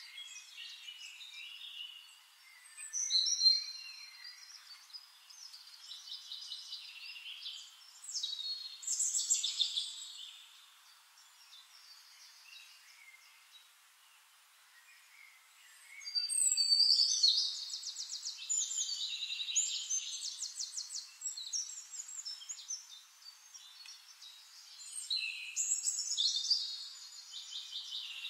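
Songbirds singing: phrases of high chirps and fast trills come every few seconds, with a quieter stretch in the middle.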